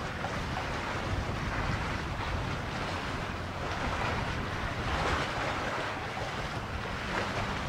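Choppy seawater washing and slapping against a moored fishing platform in uneven swishes that swell and ease every second or two, with wind rumbling on the microphone.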